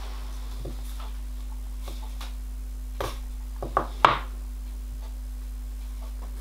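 A few light clicks and knocks of small metal parts being handled on a work mat: split big-end bearing blocks being slid off model-locomotive connecting rods, the sharpest knock about four seconds in, over a steady low background hum.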